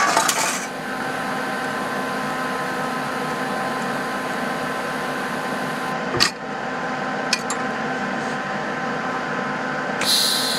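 AC TIG welding arc on aluminum from an Everlast 250EX welder, buzzing steadily. There is a short crackling hiss at the start and again near the end, and two sharp clicks midway.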